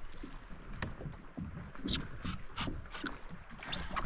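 Water lapping and splashing against a kayak's hull in short, irregular splashes over a low rumble.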